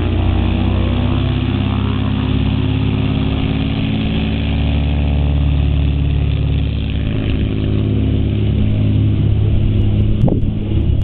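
Cessna L-19 Bird Dog's piston engine and propeller running at full power through the takeoff roll and liftoff from a grass strip, a loud steady drone whose pitch sinks slightly as the plane goes by.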